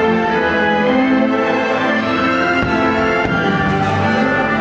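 Orchestral soundtrack of a fireworks show playing loud and steady, with a couple of faint firework pops about two and a half and three seconds in.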